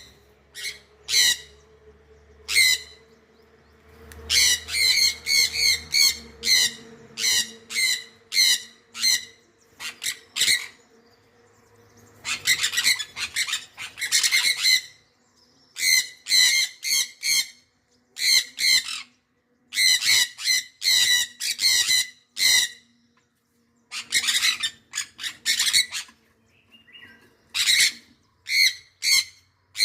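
A bird calling: short, harsh squawking notes repeated in quick runs of several, with brief pauses between the runs.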